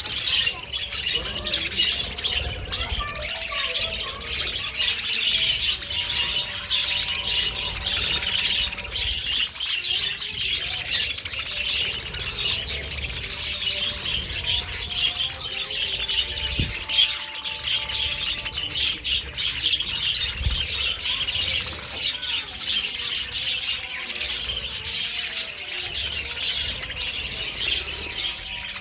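A flock of budgerigars chirping and chattering continuously, many short overlapping chirps and squawks at once.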